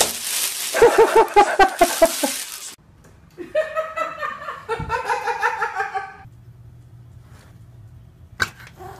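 A person laughing, a quick run of short "ha" pulses over a burst of noise, then a second, longer stretch of laughter a couple of seconds later.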